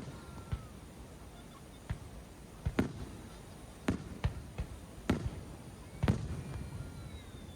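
Aerial fireworks shells bursting: a string of sharp booms at an uneven pace, about one or two a second, with faint whistles between them.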